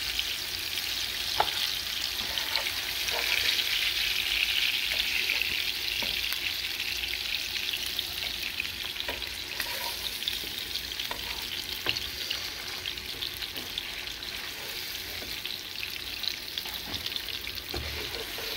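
Tuna steaks searing in hot oil in a frying pan: a steady sizzling hiss with occasional small pops and clicks.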